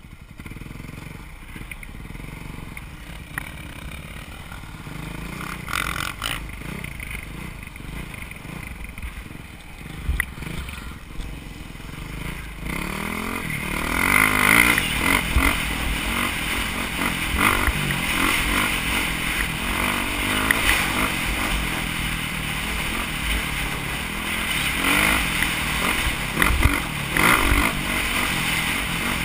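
Dirt bike engine running under the rider, heard from a camera on the bike. About thirteen seconds in it revs up with a rising pitch and everything grows louder as the bike speeds up, then it keeps pulling with the throttle easing on and off.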